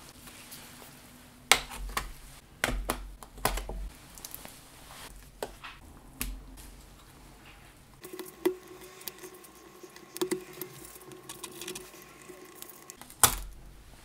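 Handling of laptop parts on a towel: a few sharp knocks and taps in the first seconds. From about eight seconds there is a run of small crackles as a flat ribbon cable is peeled off its adhesive on the keyboard's metal plate, over a faint steady hum. A sharp knock comes near the end.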